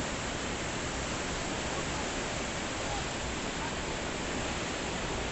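Steady, even rush of the Godavari river in flood, swollen to about 70 feet.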